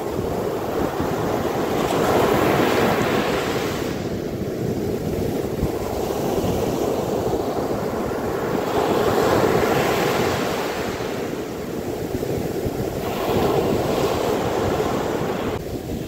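Sea surf breaking and foamy wash rushing up over sand at the water's edge. The rush swells and eases every few seconds as each wave comes in.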